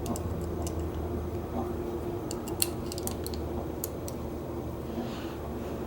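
Small, sharp metallic clicks and taps, scattered irregularly with a cluster about two and a half seconds in, from handling a disc padlock and lock-picking tools.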